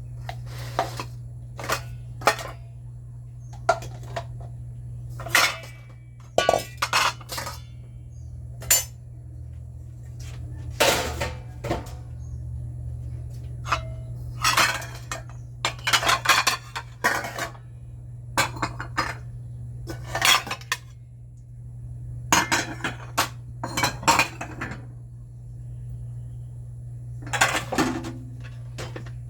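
Dishes and metal cutlery clinking and clattering as they are handled and set down, in irregular bunches of knocks with short pauses between, over a steady low hum.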